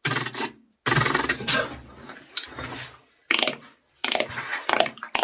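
A string of about five short, sharp clicking and clattering sound effects with brief gaps between them, made with the mouth in imitation of objects.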